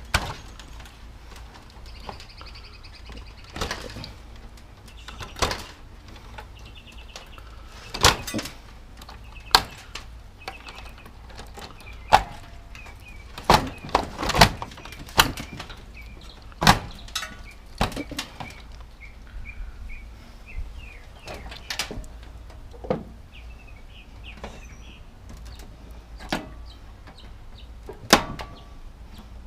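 Scattered sharp knocks and clanks at irregular intervals, busiest in the middle, with birds chirping in the background.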